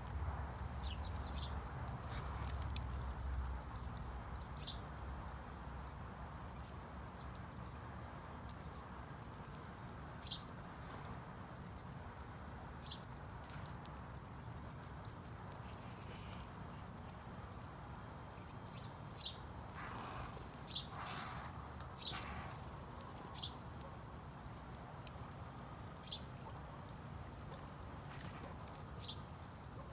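Crickets chirping over a steady high insect trill. The chirps come in frequent quick bursts of sharp high pulses, mixed with a few short, sharp bird chip notes that drop in pitch.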